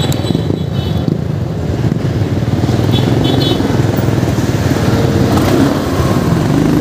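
A vehicle engine running steadily at low speed through a U-turn, with street traffic around.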